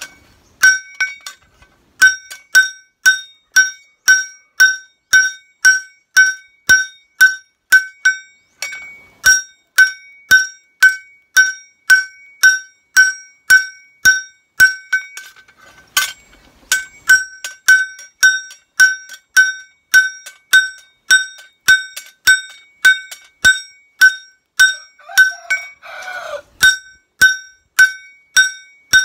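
Hand hammer striking a forged kitchen-knife blade on a steel anvil block, a steady run of ringing metal-on-metal blows at about two a second, with two short breaks.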